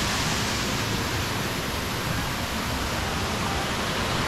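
Water from a man-made waterfall rushing steadily, an even hiss of falling water.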